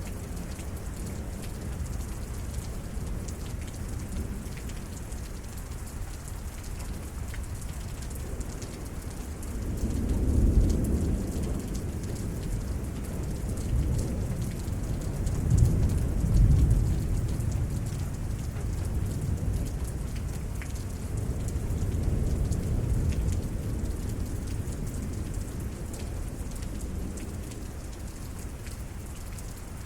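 Steady rain falling in a severe thunderstorm. Thunder starts rumbling about ten seconds in, swells several times and dies away over the next dozen seconds.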